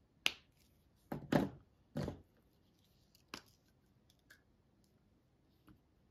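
A few short clicks and knocks of craft supplies being handled on a tabletop, the loudest a cluster between one and two seconds in, with smaller ones later.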